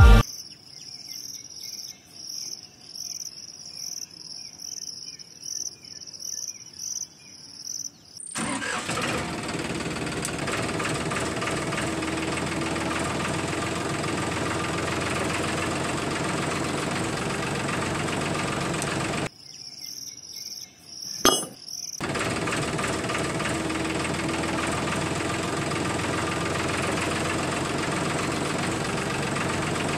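Insects chirping in a high, even pulse, then a steady engine running sound that starts abruptly about eight seconds in. It cuts out for a few seconds about two-thirds of the way through, where the insects and one sharp click come through, and then carries on.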